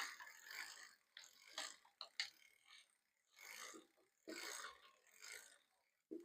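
Faint, intermittent clicking and rubbing of a bicycle drivetrain as the crank is turned backwards to thread a pedal into the crank arm, the rear freewheel pawls ratcheting, with a few sharp clicks.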